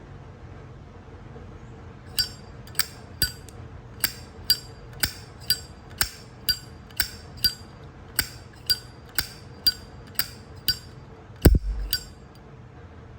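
Solid-copper Zippo lighter's hinged lid being flicked open and snapped shut over and over, a sharp ringing metal clink about twice a second, about seventeen in all. A heavier knock with a dull thud comes near the end.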